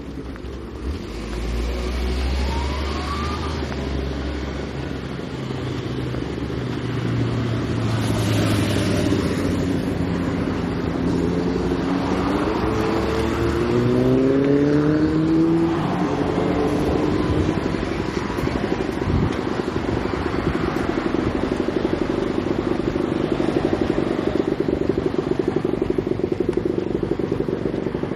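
Road traffic: motor vehicles running past, with an engine pulling away and rising in pitch in steps around the middle, then a steady engine hum through the second half.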